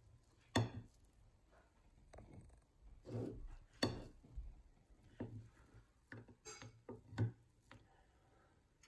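Table knife cutting through a honey-soaked pancake, the blade clicking against the ceramic plate several times, sharpest about half a second in, near four seconds and about seven seconds in.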